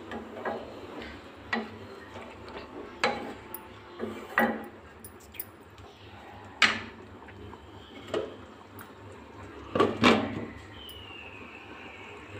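Thick gravy simmering in a non-stick kadai, with sharp pops and clicks every second or so. About ten seconds in, the pan's glass lid is set down on it with a clatter, followed by a short falling squeal.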